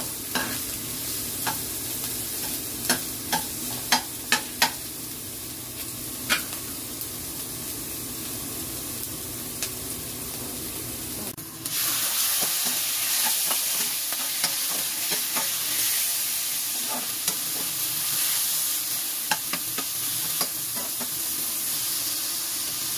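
Diced onion frying in a wok, with a metal spoon clicking and scraping against the pan as it is stirred. About eleven seconds in, raw chicken pieces are tipped into the hot pan and the sizzle turns suddenly louder and hissier, and the stirring clicks go on.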